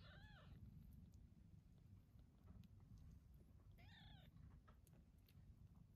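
Newborn Persian kittens mewing faintly: two short, high-pitched cries that rise and fall, the second about four seconds after the first, over a faint low rumble.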